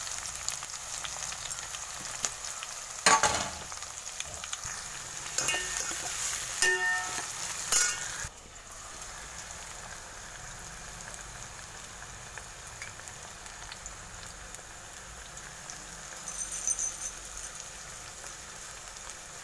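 Sliced shallots and curry leaves sizzling in hot oil in a stainless steel pot, a steady hiss. A steel ladle knocks against the pot a few times in the first half, after which the sizzle goes on alone.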